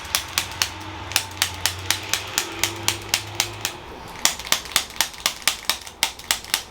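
Rapid, even tapping from a chiropractic percussion adjusting instrument working on the shoulder muscles: sharp clicks about five a second, with a short pause a little past the middle.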